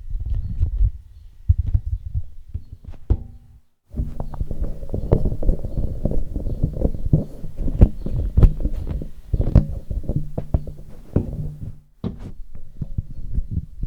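Handling noise from handheld vocal microphones: low thumps, knocks and rubbing as the mics are gripped and moved in the hand, picked up through the mics themselves. It comes in separate takes, broken by abrupt cuts about four seconds in and near the end.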